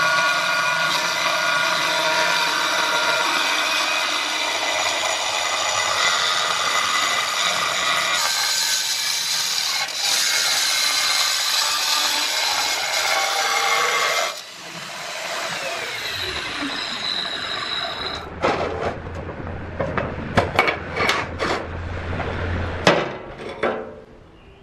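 A power tool running steadily for about fourteen seconds, then switched off and winding down, followed by a run of sharp knocks and clatters.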